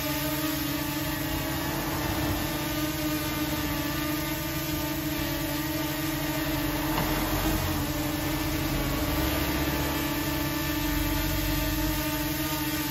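Small folding quadcopter drone hovering low, its propellers making a steady whirring buzz that holds nearly the same pitch throughout.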